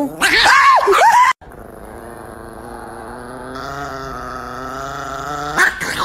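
A dog vocalising: about a second of high, wavering whines, then after an abrupt cut a long, low, steady growl that slowly grows louder.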